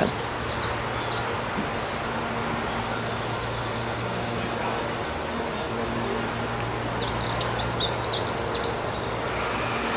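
Outdoor insect chorus: a steady high-pitched trill throughout, with birds chirping in a quick flurry near the start and again a few seconds before the end.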